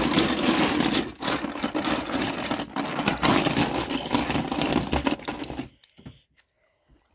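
A hand rummaging through a plastic tub full of small toy cars: a dense, continuous clatter of the little cars knocking against each other and the tub. It stops suddenly near the end.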